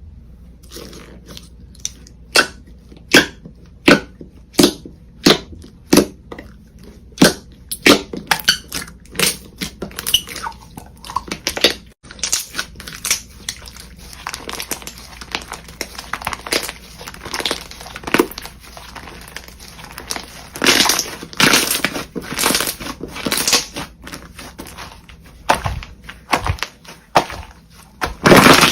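Slime being handled and pressed, giving a run of sharp pops, about one every second at first and then coming faster. From about two-thirds of the way in, these give way to longer, louder noisy bursts.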